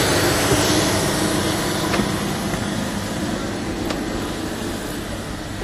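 Steady noise of aircraft engines running on the ramp, slowly fading as the phone is carried up the airstair into the jet's cabin, with a couple of faint knocks of footsteps on the steps.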